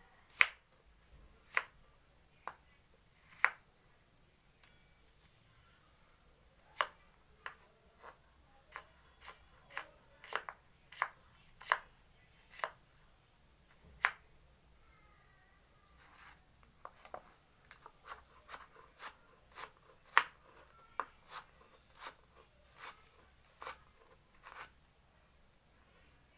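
Kitchen knife cutting carrot on a cutting board: sharp, irregular chops, about one or two a second, with short pauses between runs of cuts.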